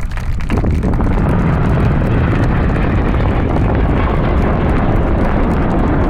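Jet roar from the Red Arrows' BAE Hawk T1 jets flying overhead. It builds over about the first second, then holds as a loud, steady rumble.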